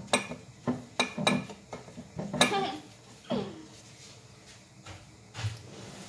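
Kitchen dishes and cutlery clattering: a quick string of sharp clinks of utensils against plates and pans in the first two and a half seconds, then quieter handling with a soft knock near the end.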